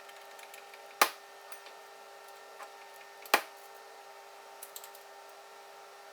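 Two sharp metal knocks, about two and a half seconds apart, over a steady machine hum with a few fixed tones: metal parts and tools striking while soft jaws are fitted and bolted into a milling-machine vise.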